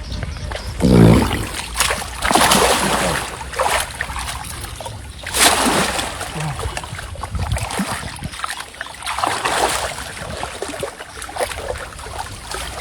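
Water splashing and sloshing in irregular bursts, loudest about a second in, around two and a half seconds and around five and a half seconds in.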